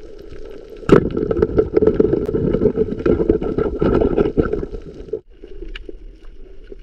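Muffled underwater sound heard through an action camera's waterproof housing during a spearfishing dive. A sharp knock comes about a second in, then about four seconds of dense crackling and thumping. After a sudden cut it drops to a quieter hiss.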